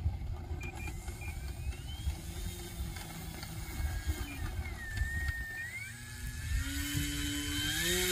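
Wind buffeting the microphone in gusts, with a few thin gliding whistles. Near the end a buzzing tone joins in and rises in pitch.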